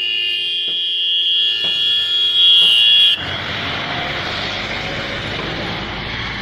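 A long, steady vehicle horn blast that cuts off suddenly about three seconds in, leaving the steady rush of a waterfall.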